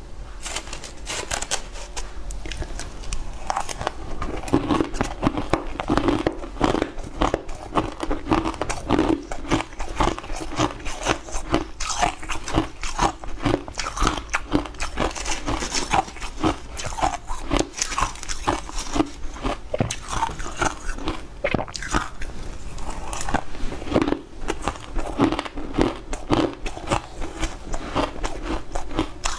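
Close-miked crunching and chewing of shaved ice and hard icy chunks in the mouth: a dense crackle of bites over a steady chewing rhythm of about two strokes a second.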